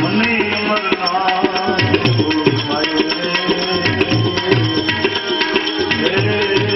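Instrumental passage of a Gujarati devotional bhajan with no singing: tabla keeps a steady rhythm with a deep stroke about twice a second, under sustained melodic tones.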